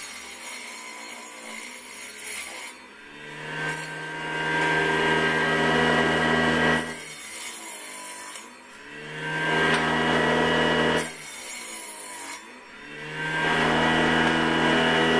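Mini table saw, its small circular blade belt-driven by an 18 V cordless-drill motor, cutting a thin wooden slat three times. During each cut the motor's whine sags in pitch and quietens while the blade rasps through the wood, then rises back to full speed between cuts. The motor runs off a partly drained battery.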